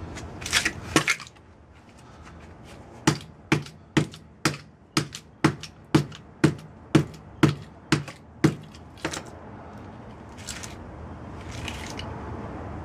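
Hammer blows on a microwave oven transformer, about two strikes a second in a run of a dozen or so, after a few quicker knocks near the start: it is being broken apart to get at its windings.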